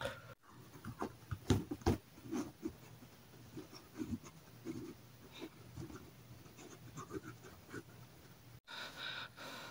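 Faint handling noise: soft rustles and a few light knocks, two of them sharper about one and a half and two seconds in, as a furry plush toy is moved about close to the phone.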